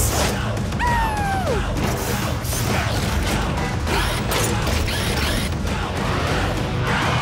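Cartoon mechanical sound effects, whirring, ratcheting and clanking, as a rescue vehicle and its claw tool transform, over background music. A falling tone sounds about a second in.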